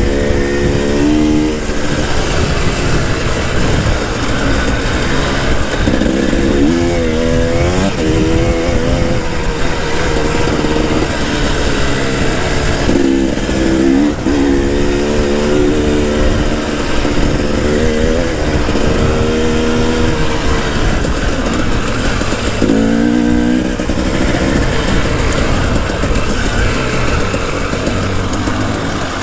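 2018 KTM 300 TPI's fuel-injected two-stroke single-cylinder engine revving on and off the throttle as the dirt bike is ridden along a dirt track. Its pitch climbs and drops several times.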